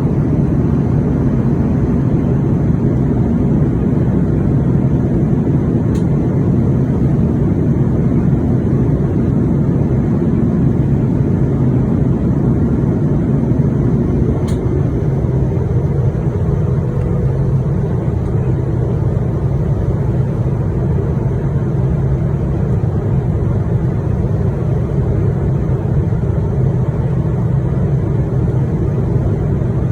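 Steady loud rushing noise of an Airbus A330-900neo in flight, heard from inside the aircraft: airflow and engine noise during the approach. Two faint brief ticks come through it, about six seconds in and again about eight seconds later.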